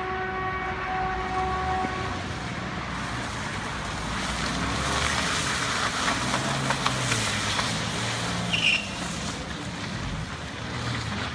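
BMW F01 saloon being driven hard on a wet road: the engine revs up and down, with hissing tyre and water-spray noise. A held tone sounds for about the first two seconds, and a short higher-pitched squeak comes near the end.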